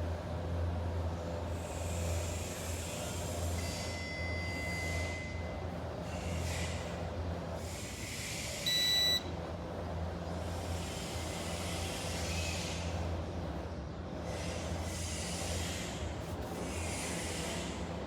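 A steady low hum throughout, with a single short, loud electronic beep about nine seconds in, the loudest sound here.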